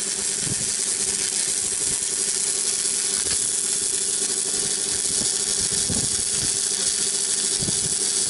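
Electric arc welding: the steady, even crackling hiss of the arc laying a weld, with a low steady hum beneath it.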